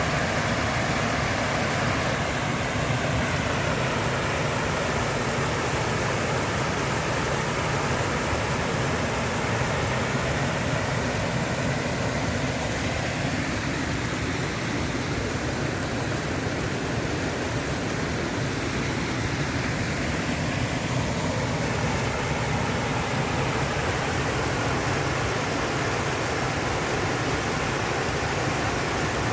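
Stream or small river running over rocks: a steady rushing and babbling of flowing water.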